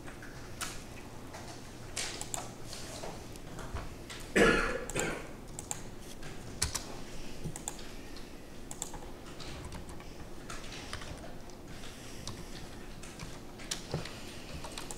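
Computer keyboard and mouse clicks, scattered single taps. A brief cough about four and a half seconds in is the loudest sound.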